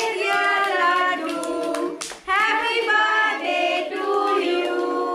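A group of children and women singing a birthday song together, with hand clapping.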